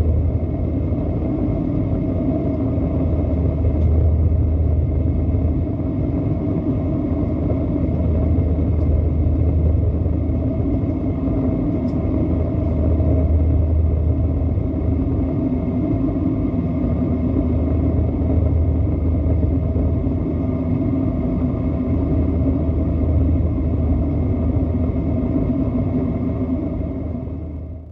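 Airbus A320-214 aircraft noise: a steady low rumble with a faint steady whine above it, fading out at the very end.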